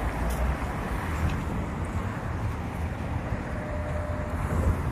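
Steady street traffic noise with an uneven low rumble.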